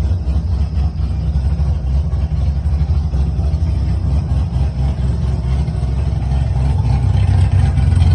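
Tuned drift car's engine idling steadily, freshly started on its new braided fuel lines with fuel pressure holding where it should. It gets a little louder near the end.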